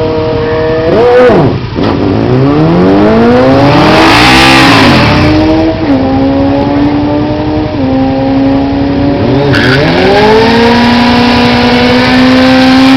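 Sport motorcycle engines at a quarter-mile drag run: a quick rev about a second in, then the engine pulling hard with its pitch climbing, followed by several sudden pitch steps between steady stretches as it runs through the gears.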